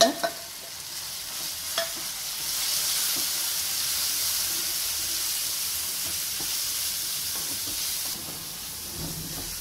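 Onions, tomatoes and freshly added ground spices sizzling in oil in a nonstick pan while a spatula stirs them. The sizzle swells about two seconds in and eases off near the end.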